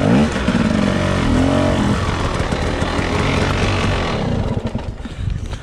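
Dirt bike engine revving up and down in short bursts over the first couple of seconds, then running at a steadier pitch and easing off near the end.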